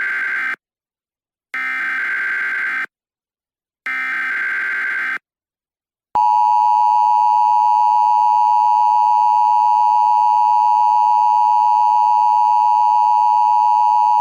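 Emergency Alert System header: three short bursts of the buzzy SAME digital data tones, the first cut off just after it starts. About six seconds in, a loud, steady attention tone begins and holds, the signal that an emergency message follows.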